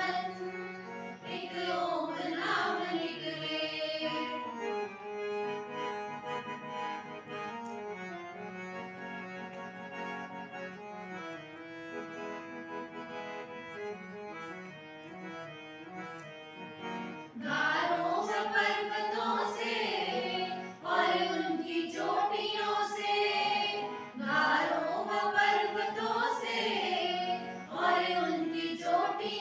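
Hindi devotional bhajan: a group of mainly women singers in unison with harmonium accompaniment. The voices drop out about four seconds in, leaving a held harmonium interlude, and the group singing comes back in a little past halfway.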